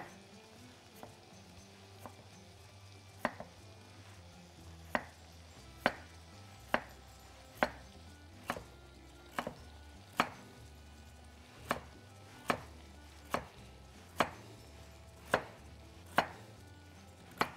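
Chef's knife slicing carrots into rounds on a wooden cutting board: a sharp knock of the blade on the board about once a second, faint at first and clearer after a few seconds.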